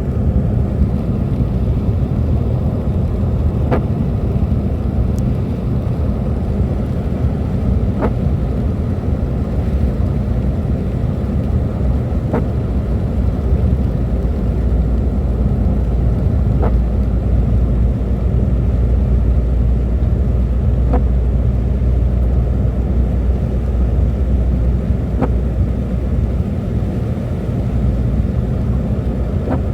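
A car driving, with a steady low rumble of engine and road noise. A faint short squeak or tick repeats evenly about every four seconds.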